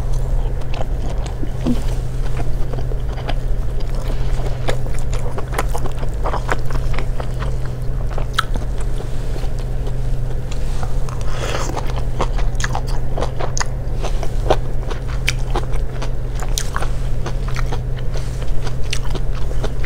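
Close-miked chewing and biting of stir-fried bean sprouts and tofu, with many small crunchy clicks, plus light clicks and scrapes of a plastic fork in a plastic food tub. A steady low hum runs underneath.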